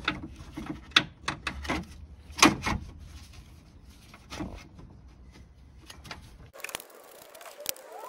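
Hard plastic knocks and clicks of a replacement radiator cooling fan and shroud being wiggled into its mounting slots behind the radiator, with the sharpest knocks about a second and about two and a half seconds in. The knocking stops abruptly about six and a half seconds in.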